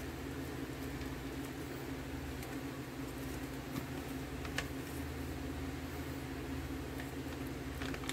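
Steady low hum of room background noise, with a few faint light clicks from the meal packaging being handled, about four seconds in and again near the end.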